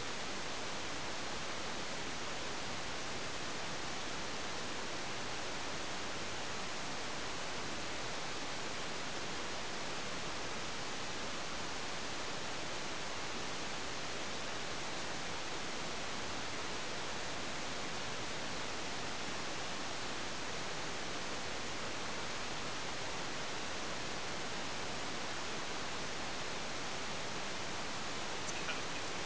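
Steady, even hiss from the model rocket's onboard camera microphone, the camera lying in darkness stuck in the ground after the crash, so nothing but its own noise is picked up.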